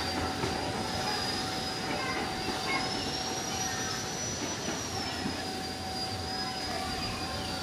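KRL Commuter electric multiple unit rolling slowly round a curve, its wheels giving a steady high-pitched squeal that rises slightly in pitch midway and then settles, over the rumble of the running train.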